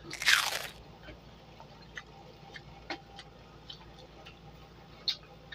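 A loud, short wet suck from lips on fingers right at the start, then scattered small clicks and ticks of eating by hand.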